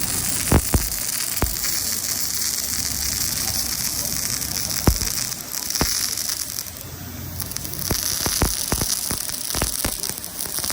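Pulsed MIG welding arc from an OTC Welbee P400 welder: a steady buzzing hiss with scattered sharp pops and crackles.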